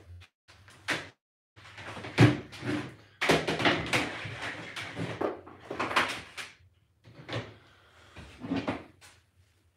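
Irregular knocks, bangs and rustling of things being handled and moved about, the loudest bang about two seconds in.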